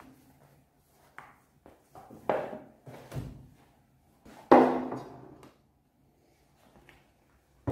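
A handful of separate soft thunks and taps as a tablet in a folio case is opened, folded into a stand and set down on a wooden desk. The loudest knock comes about four and a half seconds in, as a plate is set down beside it.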